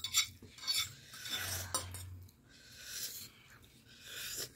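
Forks and spoons scraping and clinking against dinner plates as noodles are eaten, in several short, irregular strokes.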